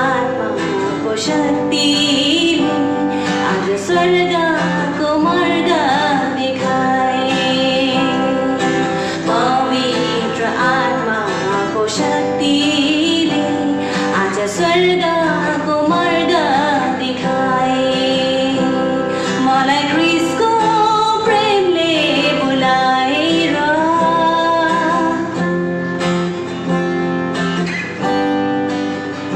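A woman singing a worship song to acoustic guitar strumming.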